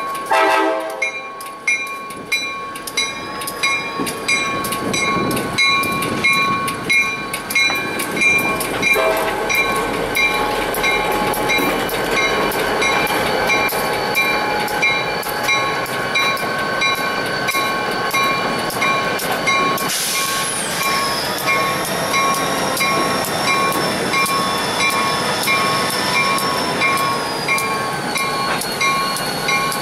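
A diesel locomotive horn blast ends in the first second, then a grade-crossing signal bell rings at an even beat while two diesel locomotives roll slowly past. About two-thirds of the way through a high whine drops in pitch and holds.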